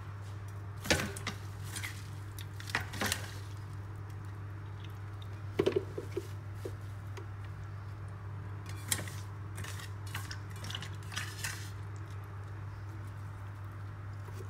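Fresh spinach and coriander leaves being pushed by hand into a plastic Panasonic mixer-grinder jar: scattered knocks and clicks of the jar with rustling leaves, the sharpest about one, three, six and nine seconds in, over a steady low hum. The blender motor is not running.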